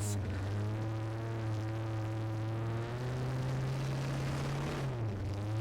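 A competition 4x4 truck's engine running at steady revs. The pitch rises slightly about three seconds in and dips briefly near the end.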